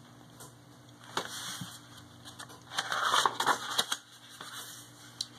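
Pages of a hardcover picture book being turned by hand: paper rustling and crinkling with a few light taps, loudest for about a second midway through.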